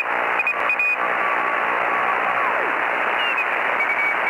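Shortwave radio receiver static: a steady hiss heard through a narrow receiver passband, with whistling carriers sliding in pitch as if the dial is being tuned. A Morse code tone keys on and off in the first second.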